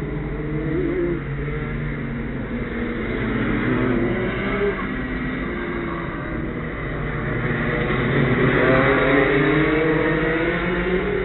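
Go-kart engines running, several engine notes rising and falling as karts speed up and slow down, growing louder about eight seconds in.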